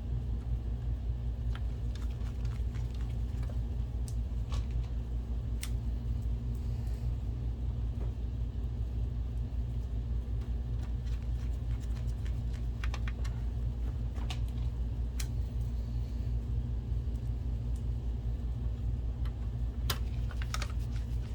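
Scattered small clicks and taps of plastic projector parts being handled and fitted together, over a steady low hum.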